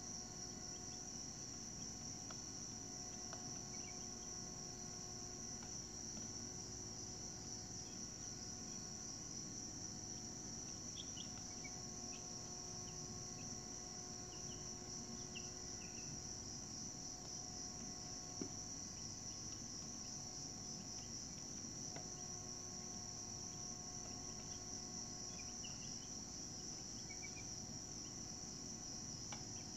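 Steady, high-pitched insect chorus, with a few faint short high calls in the middle and near the end and a single click about 18 seconds in.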